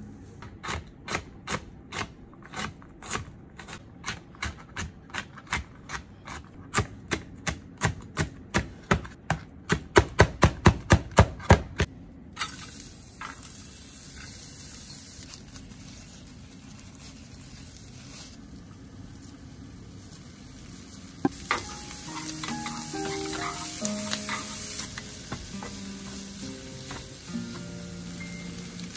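Knife chopping on a cutting board, about two strokes a second, quickening to about four a second before stopping around twelve seconds in. Then food sizzling in a frying pan, louder after a sharp knock about twenty-one seconds in. Soft piano music underneath.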